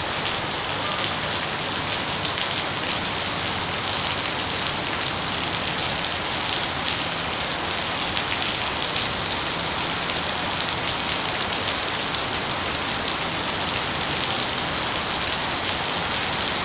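Heavy rain falling steadily on wet paving and puddles: an even, dense hiss of drops splashing, without a break.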